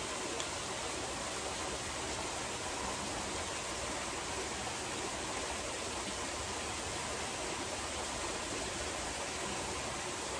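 Artificial rock waterfall pouring into a swimming pool: a steady, even rush of falling water.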